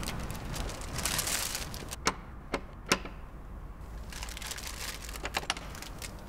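Three sharp knocks on a wooden front door in quick succession, under a second in all, with a few lighter clicks later on.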